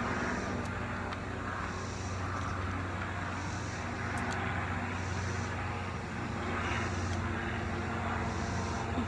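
Steady low mechanical hum under outdoor background noise, with faint soft swells high up about every second and a half and a few light clicks.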